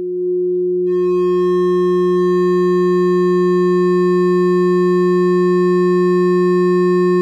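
A 3D-printed half-horn mini-subwoofer playing a steady 360 Hz sine test tone. The tone swells over the first second as the amplifier is turned up, then holds at full level, about 136 dB inside the test cabin. From about a second in, faint buzzy overtones ride on the tone as the driver is pushed hard.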